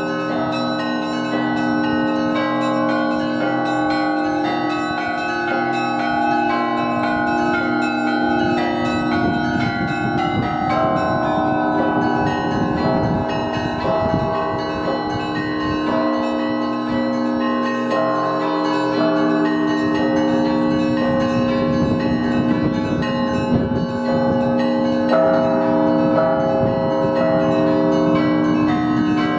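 Russian Orthodox monastery bells rung in a continuous peal: many bells of different pitches struck together, their tones ringing on and overlapping. Deep strokes from the larger bells join about eight seconds in, drop out briefly past the middle, then come back.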